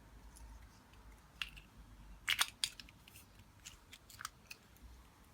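A string of short, sharp, light clicks and snaps, about eight of them over three seconds, with a quick cluster of three a little after two seconds in: small hand-held parts or a hand tool being worked.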